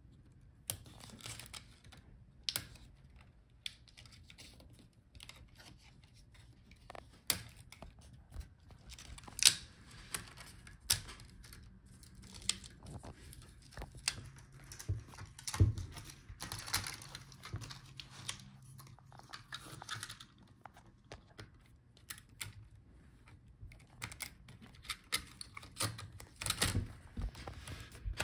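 Irregular small clicks, taps and scrapes of a plastic pry tool and fingers working the ribbon-cable connectors and parts inside an opened laptop, with a few sharper clicks among them.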